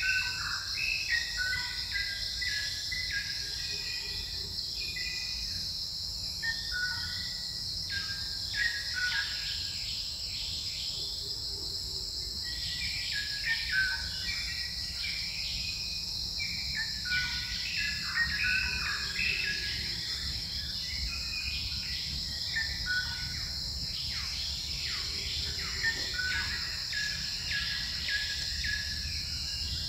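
Forest ambience: a steady high-pitched insect drone runs throughout, with many short bird chirps and calls over it that thin out briefly near the middle.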